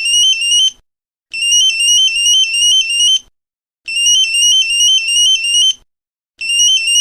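Samsung phone alarm tone: a high electronic melody of quick stepping beeps, played in bursts of about two seconds with short silent gaps between, repeating over and over.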